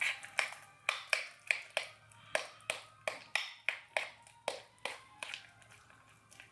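Metal spoon clinking against a bowl while stirring oatmeal, about three sharp ringing clinks a second, thinning out near the end.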